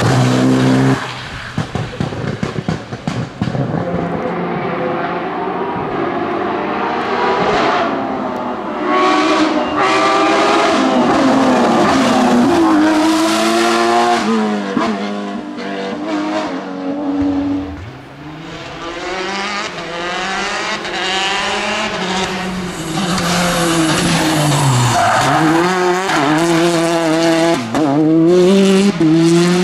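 Rally cars at full attack on a tarmac stage, one after another, including a Porsche 911 and a Peugeot 208. Their engines rev up and drop back through gear changes and hard braking, with tyres squealing through the corners.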